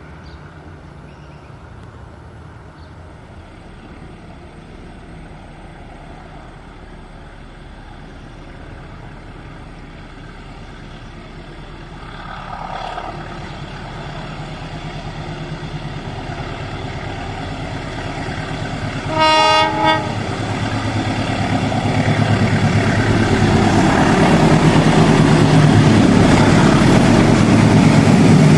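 An approaching diesel-hauled train grows steadily louder, its engine hum and rail noise swelling as it nears. About two-thirds of the way through, the locomotive sounds one short horn blast lasting under a second.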